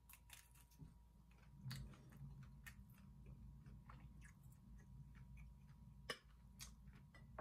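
Quiet eating: scattered small clicks of chewing and of a fork against a bowl, with a sharper clink about six seconds in as the bowl is set down on the table.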